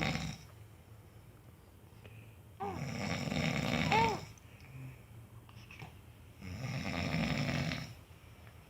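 A man snoring in his sleep: the end of one snore at the very start, then two long snores, one about three seconds in and one about six and a half seconds in, each lasting about a second and a half.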